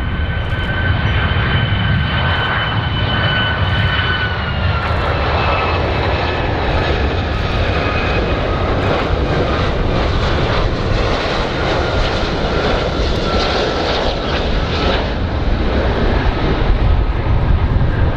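Jet engines of a Boeing 757 airliner on landing approach, Rolls-Royce RB211 turbofans, running as the plane passes. A steady high whine with two clear tones drops in pitch about four to five seconds in, over a deep rumble that grows louder near the end.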